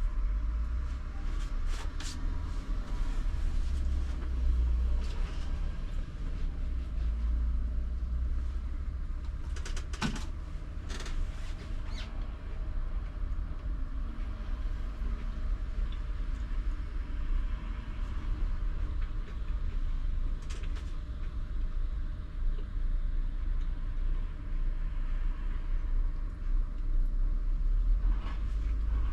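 ČKD Tatra T3R tram running, heard from the driver's cab: a steady low rumble from the running gear, with scattered sharp clicks and knocks, the sharpest about ten seconds in.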